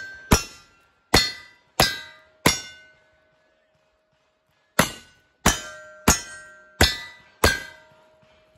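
Black-powder revolver shots: four fired about two-thirds of a second apart, a pause of about two seconds as the shooter changes guns, then five more at the same pace. Each shot is followed by the ring of a struck steel target, a steady ring hanging on after the last shot.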